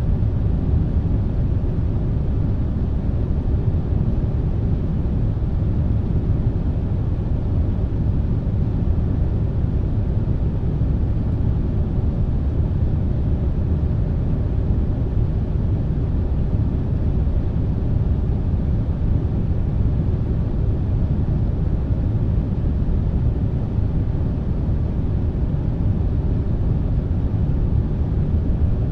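Air conditioner running: a steady, low-pitched rushing noise, even in pitch and level throughout.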